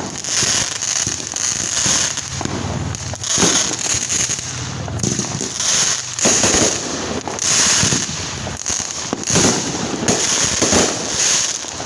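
Fireworks going off one after another, about a dozen bangs with crackling, roughly one a second.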